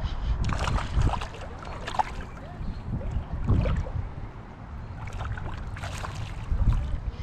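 River water sloshing and splashing in irregular bursts, over a low rumble of wind on the microphone.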